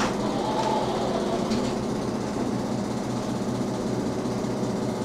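A door clunks shut right at the start, followed by a steady low mechanical hum.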